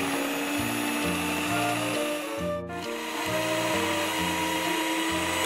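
Background music with a bouncy bass line stepping from note to note, over a steady machine-like whirring hiss. Both cut out briefly about halfway through.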